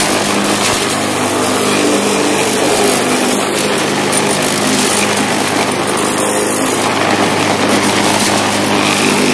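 Bolens walk-behind mulching mower with a Briggs & Stratton engine, running steadily at cutting speed while being pushed through grass.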